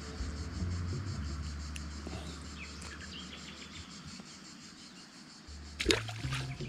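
Insects chirping faintly in the background. Near the end, a sharp splash as a small bass is dropped back into the pond water on its release.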